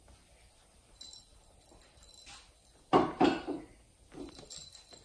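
A few short animal cries close together about three seconds in, the loudest sound, likely from a small pet. Softer scratching and rustling come before and after, as a tabby kitten paws and bites a pom-pom on a carpeted cat tree.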